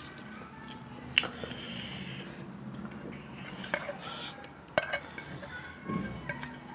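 A stainless steel serving bowl clinking and scraping against a steel plate as curry is tipped and scraped out of it, with a few sharp metal clinks, the loudest about a second in. A softer thump comes near the end.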